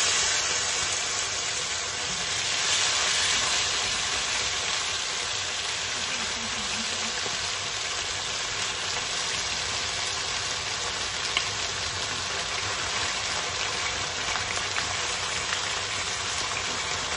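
Pork rib pieces sizzling as they fry in hot oil in a stainless steel wok. The sizzle swells a couple of seconds in as more pieces are laid into the pan, then holds steady.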